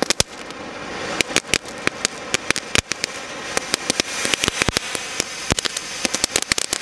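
Pencil firework burning: the steady hiss of its spark jet, with many sharp crackling pops scattered irregularly throughout.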